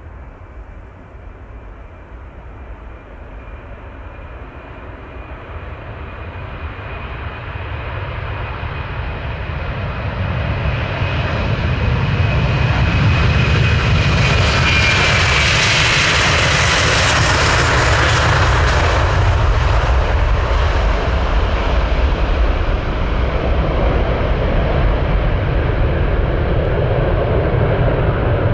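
Jet airliner flying past: the engine noise builds steadily, peaks about halfway through with a high whine that drops in pitch as it goes by, then continues as a deep rumble.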